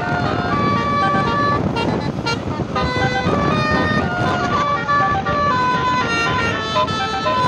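Basuri telolet musical horn on a tour bus playing a melody, its notes stepping up and down several times a second, over a steady noisy background.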